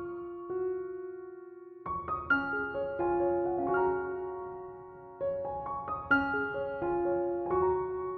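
Slow, gentle piano music: single notes and chords struck in phrases, each left to ring and fade, with short pauses between phrases.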